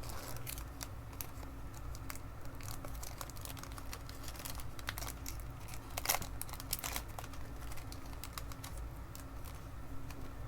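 Foil wrapper of a Pokémon Cosmic Eclipse booster pack crinkling and tearing as it is opened by hand: scattered small crackles, with louder rustles about five and six to seven seconds in, over a steady low hum.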